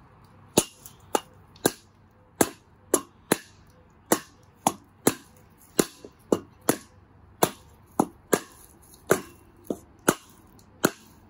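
A mallet striking a wooden block held on top of metal garden edging, about nineteen sharp knocks at one to two a second, driving the edging into the ground.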